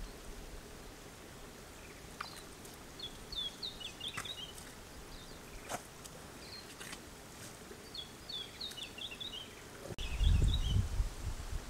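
Small birds calling in short twittering bursts over quiet outdoor ambience, with a few sharp clicks. Near the end comes a loud low rumble.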